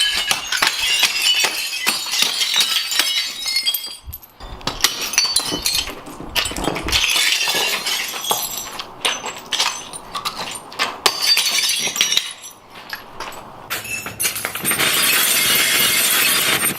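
Ceramic plates being smashed one after another with a sledgehammer: repeated crashes of shattering crockery with shards clinking. Near the end comes a denser stretch of continuous breaking.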